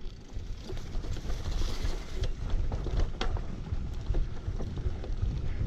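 A bicycle rolling along a dirt trail, with wind buffeting the microphone in a steady low rumble. The tyres hiss on the ground, and the bike gives several short rattles and clicks over bumps.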